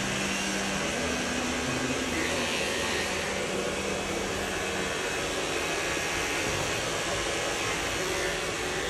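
Electric hair trimmer running steadily as it cuts along the nape, a constant whirring hiss.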